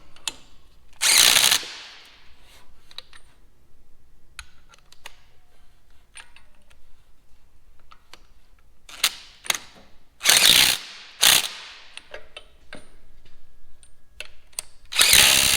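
Hand ratchet wrench clicking in quick runs as bolts are run down, with scattered sharp clicks and taps of tools on metal in between. The loudest runs come about a second in, twice around ten to eleven seconds in, and again near the end.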